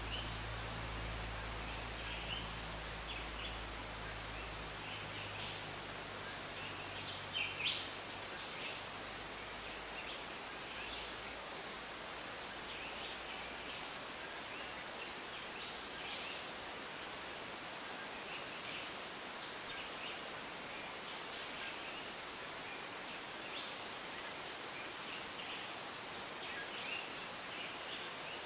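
Tropical rainforest ambience: a steady high hiss of insects with many short, high chirps from birds and frogs scattered throughout. A low rumble fades out over the first several seconds.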